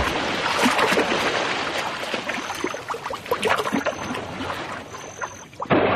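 Water splashing and churning as a kingfisher plunges into shallow water after small fish, full of quick small splashes. It gradually dies down and cuts off near the end. Three brief high thin tones sound through the middle.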